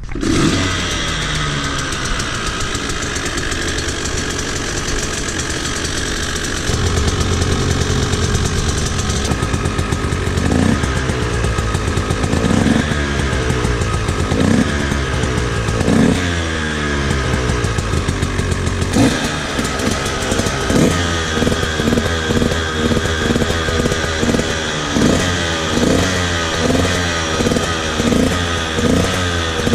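Two-stroke motorcycle engine running and revving. Its pitch rises and falls again and again, with quicker rev blips about once a second in the second half.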